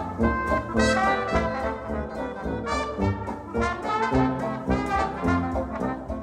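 Jazz trombone playing a brisk, rhythmic melody line over a band, with the music dying away right at the end.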